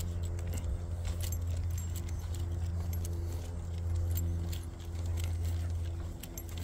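A walking dog's collar tags jingling, with the irregular clicking of its nails or steps on the pavement, over a steady low hum.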